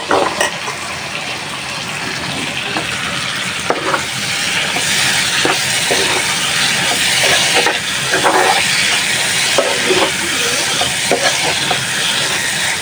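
Chopped tomatoes and onions frying in oil and spices in a frying pan, a steady sizzle that grows louder about five seconds in, with a metal spoon stirring and scraping against the pan in irregular knocks.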